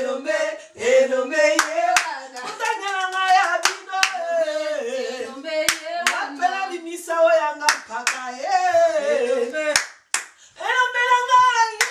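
Singing with hand clapping in time, a clap roughly every half second to second. The singing breaks off briefly about ten seconds in.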